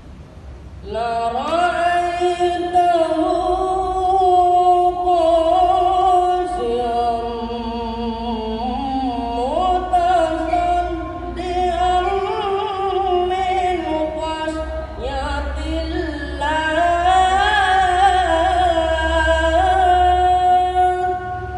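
A young reciter's voice chanting the Qur'an in melodic tilawah style through a microphone. It starts about a second in and moves through long held, ornamented notes with wavering pitch and sliding runs.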